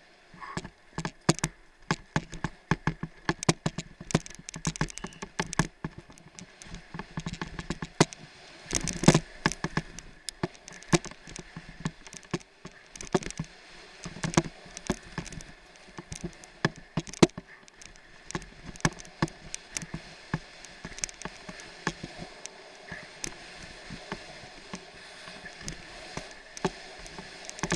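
Downhill mountain bike rattling and clattering over a rough dirt trail, heard from a helmet camera: a constant run of sharp, irregular knocks and clicks as the bike hits bumps, over a steady rush of wind and tyre noise. The knocks grow fewer and lighter in the last several seconds.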